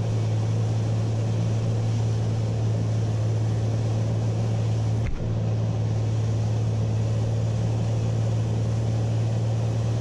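Cabin noise of a 1952 Beechcraft Bonanza in flight: its flat-six piston engine and propeller drone steadily under a constant rush of air, heard from inside the cockpit. A single brief click comes about halfway through.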